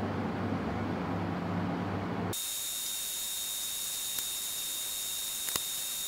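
Steady low background hum that cuts off abruptly about two seconds in, giving way to a steady high hiss with a thin high-pitched whine and a few faint clicks.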